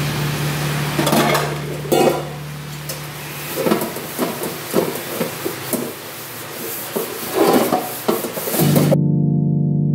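Handling noise from a razor blade and pastry brush being held and moved: scattered soft clicks and rubs over a steady hiss and low hum. Near the end this stops and background music takes over.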